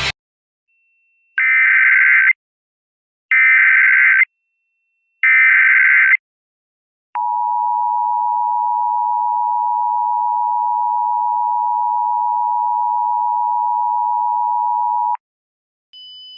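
Emergency Alert System tones: three one-second bursts of SAME header data about a second apart, then the EAS attention signal, a steady two-tone 853 and 960 Hz tone held for about eight seconds that cuts off sharply. A fainter high steady tone starts just before the end.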